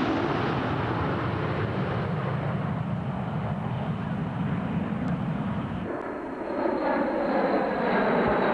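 Formation of F-104 Starfighters flying over, their J79 turbojets giving a steady jet roar. About six seconds in the sound shifts, and a high whine glides slowly down in pitch as the jets pass.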